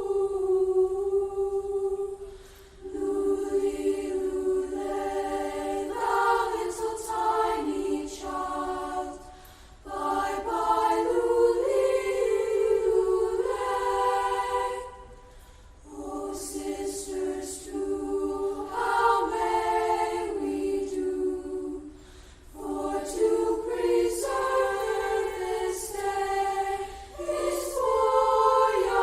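Choir singing in harmony, in sustained phrases separated by brief pauses about every six to seven seconds.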